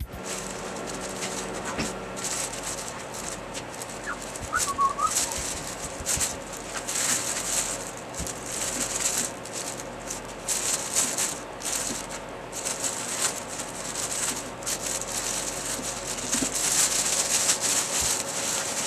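Large plastic oven roasting bag crinkling and rustling in irregular bursts as it is handled and filled with turkey breast fillets and bacon.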